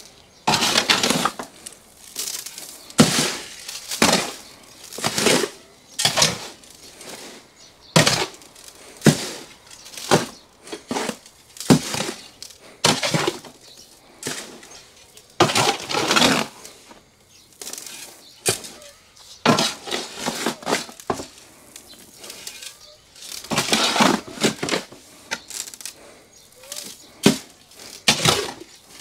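A shovel turning potting soil mixed with clay granules in a metal wheelbarrow: repeated gritty scrapes, roughly one a second, as the blade digs through the mix and against the tub.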